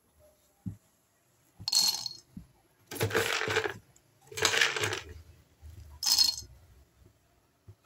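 Raw peanuts poured and dropped into a dry iron kadai, rattling on the metal in four separate pours; the middle two last nearly a second each, the first and last are short.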